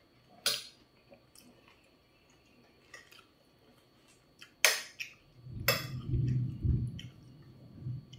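Metal fork and spoon clinking and scraping against a ceramic plate while eating, with three sharp clinks among lighter taps. A low rumble sounds for about a second and a half just after the middle.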